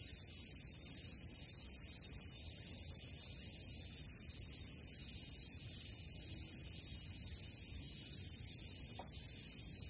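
A steady, even high-pitched hiss that does not change, over a faint low rumble.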